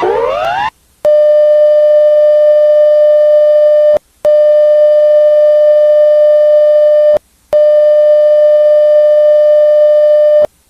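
Emergency alert attention signal: a short run of quick rising electronic sweeps, then three long, loud, steady electronic tones of about three seconds each, separated by brief silences.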